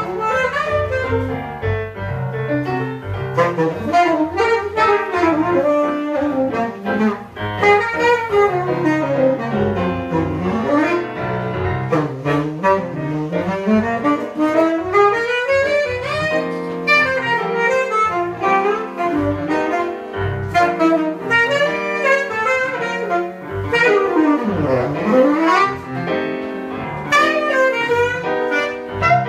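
Live jazz: a saxophone improvises fast runs that sweep up and down in pitch over piano accompaniment. About three-quarters of the way through, one quick run dives low and climbs straight back up.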